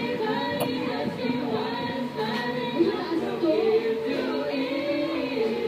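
Several voices singing together, without clear instruments.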